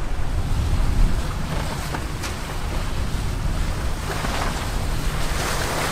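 Wind buffeting the microphone over the rush of water along a sailing catamaran's hulls: a steady, noisy wash with a strong low rumble.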